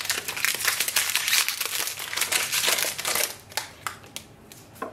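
Plastic ink-cartridge packet crinkling and rustling as it is opened and the cartridge pulled out, dying down to a few sharp crackles in the last second or so.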